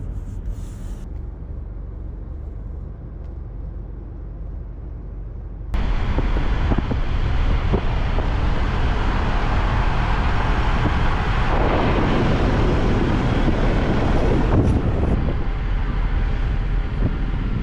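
Road and engine noise of a car driving on an icy road, a low steady rumble that about six seconds in suddenly becomes much louder, with a broad rushing noise.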